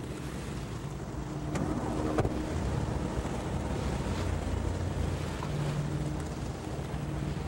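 Distant propeller engines of a water bomber aircraft droning steadily as it skims the lake to scoop water, with wind buffeting the microphone.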